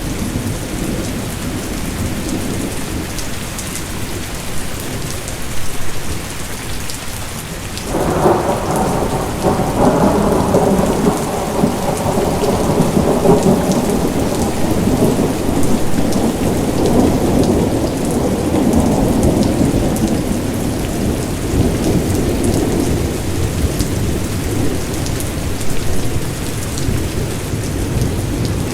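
Steady rain falling, with a rumble of thunder that starts suddenly about eight seconds in and slowly dies away over the next dozen seconds.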